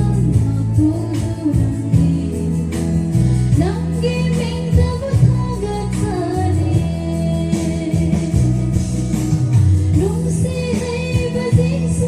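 A song with a woman singing over a band, with heavy bass notes and a steady drum beat.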